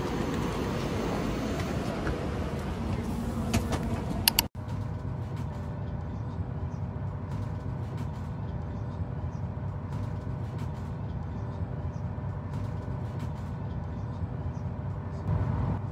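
Steady running noise of a moving vehicle. About four and a half seconds in it cuts off abruptly to a duller rumble with a low steady hum.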